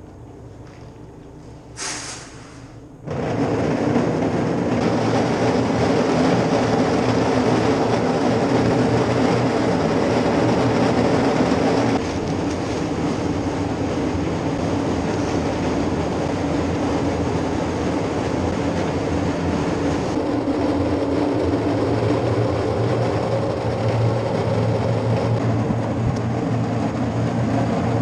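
A machine starts about three seconds in and runs steadily through the rest, a loud mechanical drone with a low hum in it.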